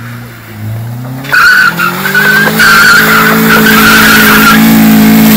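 Hyundai Tucson SUV doing a burnout on dirt: the engine is revved up about a second in and held high, and the spinning tyres squeal for about three seconds. It is a deliberate wheelspin to heat the tyres, a tyre warm-up.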